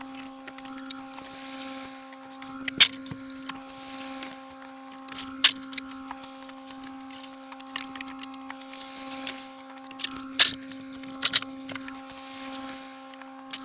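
A small electric machine hums steadily at a fixed pitch, with sharp clicks every second or two and a soft rasping swell about every three seconds.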